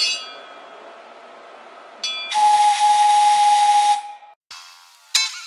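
Simulated steam whistle from the computer-controlled sound system of a Severn Lamb battery-electric 4-4-0 replica locomotive. A low hiss runs first, then one steady whistle note with a loud rush of steam hiss sounds for about a second and a half and cuts off. Guitar music begins near the end.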